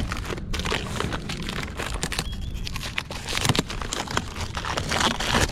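Rummaging through a pile of discarded cables, boxes and old electronics: a busy run of rustling, scraping and small knocks.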